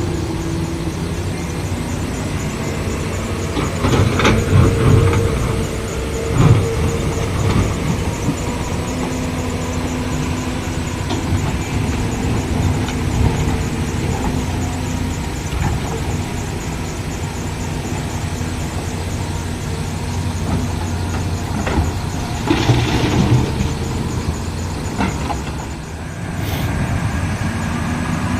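Diesel engines of an excavator and a tipper truck running steadily during loading, with a few louder bangs and surges.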